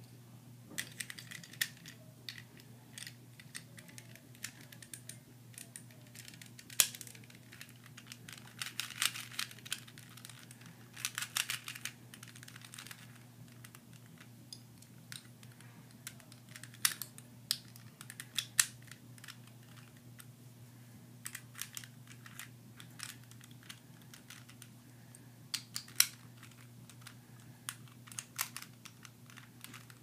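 Hard plastic pieces of a 3x3 Rubik's cube clicking and snapping as they are fitted into the cube by hand. The clicks come irregularly, with a few quick clusters partway through.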